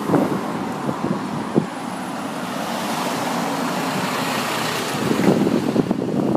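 Road traffic passing on a busy multi-lane street: a steady rush of tyre and engine noise that swells through the middle. Wind buffets the microphone in rough low rumbles about a second in and again near the end.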